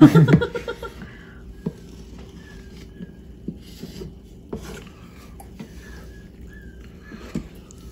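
Wooden spoon stirring chicken in curry sauce in a nonstick pan, with a few soft taps and scrapes against the pan. A pet bird gives short faint chirps in the background over a low steady hum.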